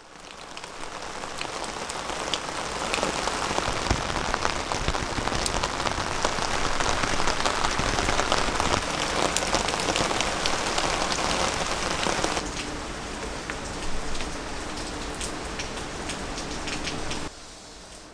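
Rain falling steadily, a continuous hiss dotted with the ticks of individual drops; it fades in at the start and becomes much softer near the end.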